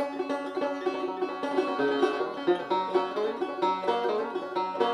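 Five-string banjo played solo, a quick run of plucked notes in an old-time tune's intro, tuned only roughly.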